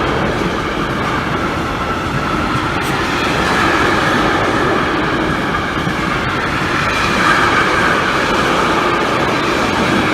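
A train passing on the line, a steady loud rumble of wheels on the rails.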